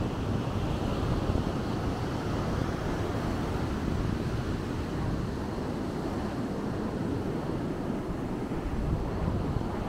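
Atlantic Ocean surf on a sandy beach, with wind buffeting the microphone: a steady noise, strongest in the low end, with no single break standing out.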